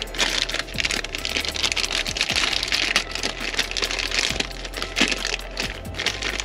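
Rapid, irregular clicks and clatter of hand tools working on metal, over a steady low hum.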